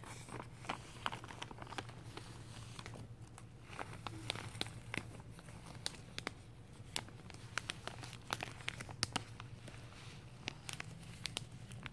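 Thick plastic sheeting wrapped around rolls of carpet crinkling and crackling under a hand, in irregular sharp crackles over a steady low hum.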